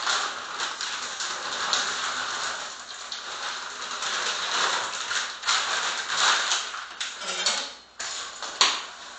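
Frozen green beans going into a hot oiled pan: a steady sizzle with scattered clicks as the beans land, and one sharp knock near the end.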